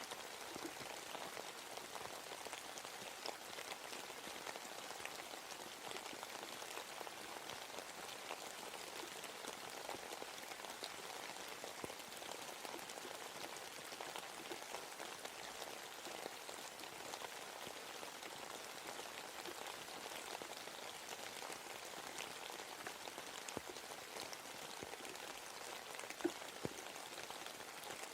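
Steady rain falling in a forest, a dense patter of drops with a few louder single drips near the end.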